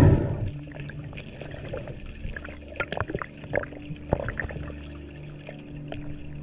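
Underwater water noise picked up by a camera in its housing: a loud rush of water at the start, then scattered bubble clicks and pops as a freediver swims up.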